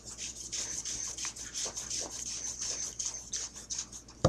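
Light, rapid scraping and rubbing of a paintball gun's barrel being fitted onto the gun, ending in one sharp click.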